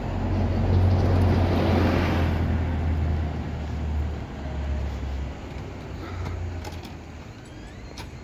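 Street traffic: a motor vehicle's engine rumbling close by, loudest in the first couple of seconds, then fading away as it passes.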